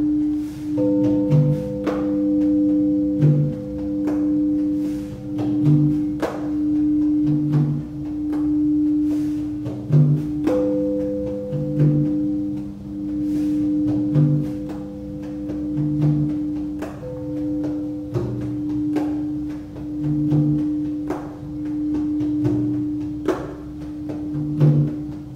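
Crystal Tones Alchemy crystal singing bowls ringing: one steady held tone that swells and fades about every two seconds, with a weaker higher bowl tone sounding alongside. Soft low percussion thumps fall roughly once a second, with light clicks of mallet strikes.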